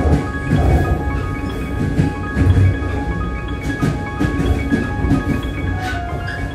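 Background music: held, ringing tones at several pitches over low beats.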